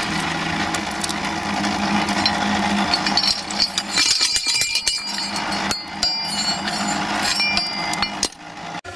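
Metal clinks and scrapes of a small firing shovel at a coal-fired miniature steam boiler's firehole, then the iron fire door being swung shut and latched, over a steady background hum.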